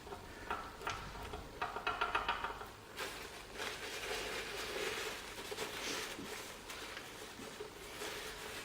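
Screws being tightened into a cast-iron lathe apron casting with a hand tool, lightly and without much torque: a quick run of small clicks in the first few seconds, then steady light scraping and rubbing.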